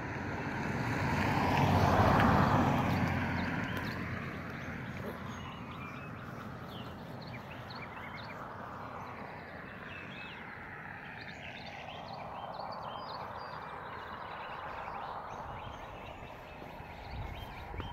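A vehicle passes on the road about two seconds in, its tyre and engine noise swelling and fading. A softer one rises and falls later. Birds chirp throughout.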